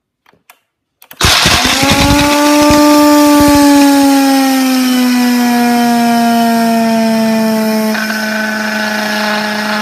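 Ninja Professional blender switching on about a second in and running at full speed with a loud, steady motor whine that drifts slightly lower in pitch. For the first few seconds hard M&M candies clatter and crack against the blades and jar, then the sound evens out as they are ground to a dry powder.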